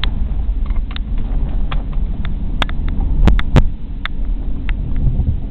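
Steady low road and engine rumble inside a moving van's cabin, with scattered clicks and two sharp knocks a bit over three seconds in.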